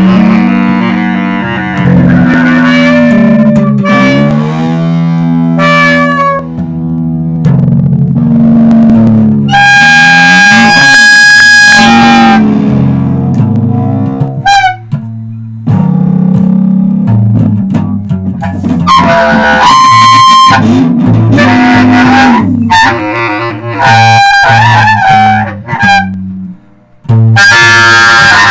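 Loud improvised band music: electric bass holding low notes under guitar and a wind instrument playing long sustained tones that slide between pitches. The music breaks off briefly a few times.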